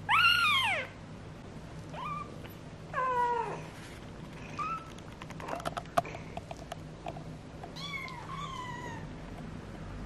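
18-day-old kittens mewing: about five thin, high cries, each falling in pitch, the loudest right at the start and two more close together near the end. A few soft clicks and rustles come around the middle.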